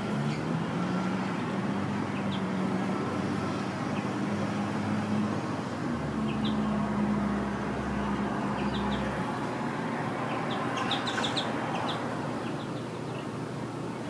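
Steady traffic hum, with a low vehicle engine drone that rises briefly at the start, holds, and stops about nine seconds in. Small birds give short high chirps over it, with a quick run of chirps about eleven seconds in.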